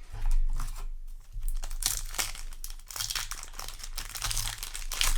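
Foil trading-card booster pack wrapper crinkling as it is handled, a dense run of quick rustles.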